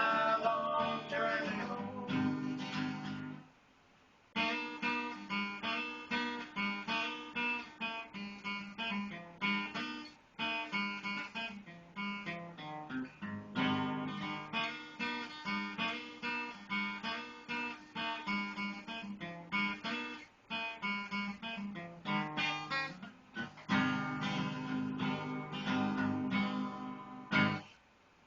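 Acoustic guitar playing an instrumental break in a bluegrass tune, with busy picked notes over a strummed bass. It cuts out briefly about three and a half seconds in and again near the end.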